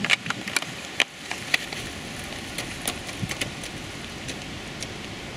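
Cyclocross bikes accelerating hard across grass: a scatter of sharp clicks and knocks from the bikes, most of them in the first three seconds or so, over a steady outdoor hiss.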